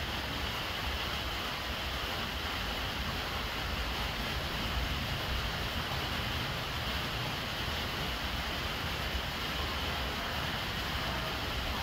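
Steady rain falling onto the full water surface of a large water jar, with rainwater running into it from a downpipe: an even, unbroken hiss with a low rumble underneath.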